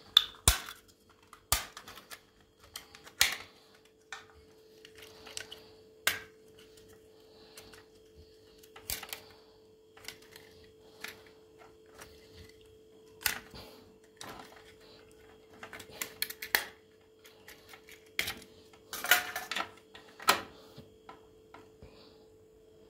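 Irregular sharp clicks and knocks of parts and tools being handled while a dishwasher's control board is swapped, heard over a steady hum.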